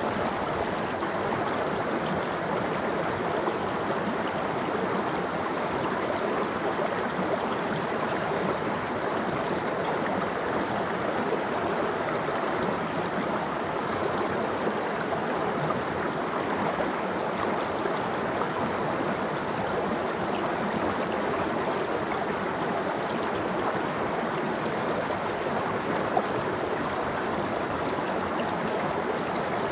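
Mountain stream of cold meltwater running and gurgling over rocks, a steady rush of water. A faint click about 26 seconds in.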